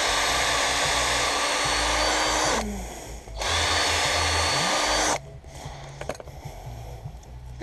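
Electric drill boring out a bolt hole with a bigger bit. It runs steadily, winds down to a stop about two and a half seconds in, then runs again in a shorter burst that ends about five seconds in.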